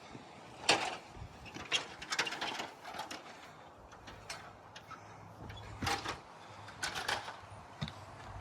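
Metal frame-tent tubes and fittings clanking and clicking as they are handled and fitted together, a scatter of irregular knocks, the loudest just under a second in.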